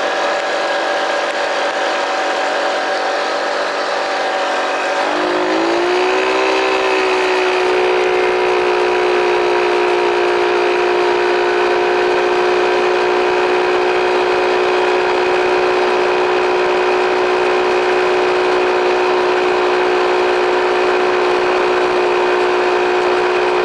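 Arctic Cat mini bike's small engine running under the rider; about five seconds in its pitch climbs and then holds steady at a higher speed while cruising.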